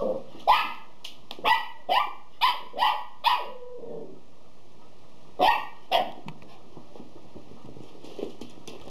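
Cavalier King Charles Spaniel puppy giving short, high-pitched play barks: about six quick barks in a row, then two more a couple of seconds later, then it stops.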